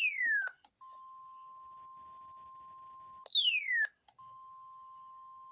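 NOAA Weather Radio's steady single-pitch warning alarm tone, near 1 kHz, announcing a severe thunderstorm warning. It is broken twice by a much louder electronic chirp that sweeps quickly down in pitch, once at the start and again about three seconds later.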